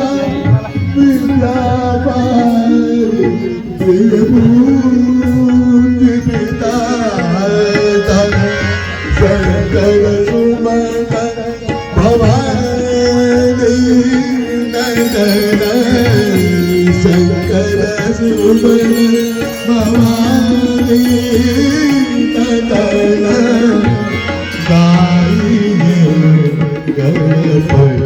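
Hindu devotional bhajan with tabla drumming keeping a steady rhythm under a sustained, wavering melody line, with voices singing.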